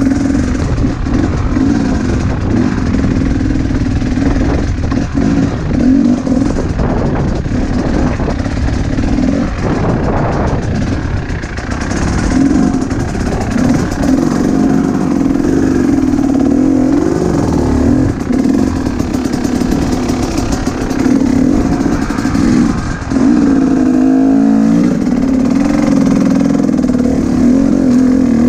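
Dirt bike engine running under load, its revs rising and falling continually. About 23 seconds in the revs pick up and stay higher.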